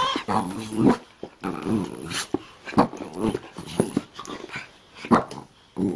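Small white fluffy dog making a run of short vocal noises, each wavering in pitch, with a few sharper, louder ones among them.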